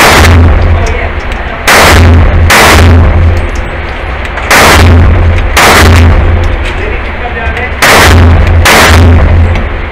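Six shots from a 9 mm semi-automatic pistol, fired in three pairs with about a second between the shots of each pair and about two seconds between pairs. Each shot rings on in the enclosed indoor range.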